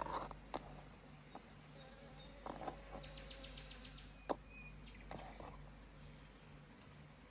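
Faint scattered knocks and scrapes of a kitchen knife and hands on a wooden cutting board as chopped tomato is gathered into a glass salad bowl, with one sharp tap about four seconds in.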